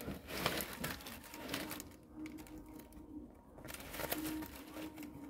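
Dry palm strips rustling and scraping as they are threaded and pulled through a woven palm chair cover, in two spells with small clicks. A faint low tone comes and goes underneath.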